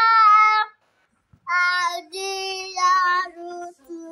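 A young girl singing, holding long notes in short phrases, with a brief break about a second in and lower, softer notes near the end.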